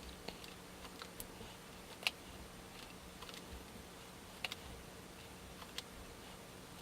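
Faint, irregular clicks and light rustling of hands tying nylon paracord into cobra weave knots, over a steady low hum.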